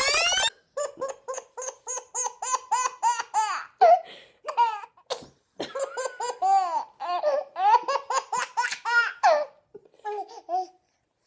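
Baby laughing in a long run of short, high-pitched laughs, three or four a second, breaking off about ten and a half seconds in.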